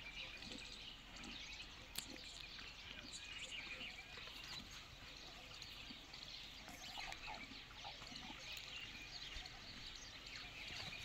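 Many small birds chirping and chattering continuously in the background, with a single sharp click about two seconds in.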